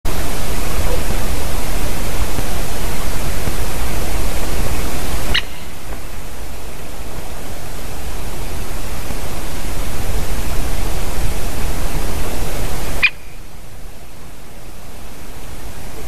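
Loud, steady rushing noise from the nest camera's microphone, with nothing else standing out above it. It drops abruptly with a short click twice, about a third of the way in and again past the middle, and each time slowly swells back up.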